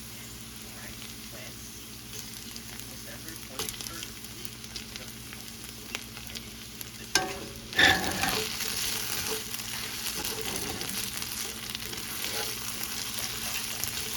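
Food frying in a hot pan with small stirring clicks. About halfway through there is a knock, then a louder hiss as more food goes into the pan and sizzles harder.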